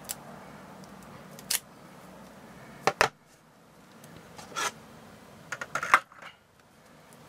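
Clear plastic wrapping and a card deck being handled on a table: short, sharp crinkles and clicks, a pair about three seconds in and a quick cluster, the loudest, near six seconds.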